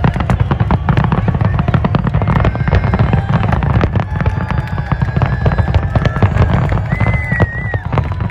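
Fireworks display: rapid crackling bursts over a constant deep rumble of booms, with a short high whistle about seven seconds in.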